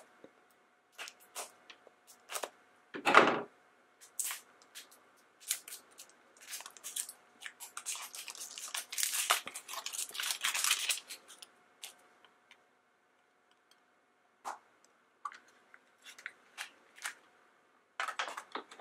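Plastic wrapper being snipped and torn off a plastic toy capsule, with scattered small clicks and crinkles and a denser burst of crinkling and tearing in the middle. One louder knock comes about three seconds in.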